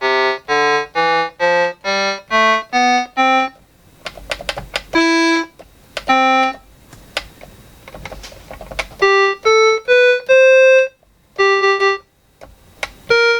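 Yamaha PortaSound PSS-30 electronic keyboard being played one key at a time up the scale. Its short, organ-like notes come about two a second, each a step higher. In stretches several keys give only a faint clack and no note: they are dead keys. A few more rising notes sound near the end.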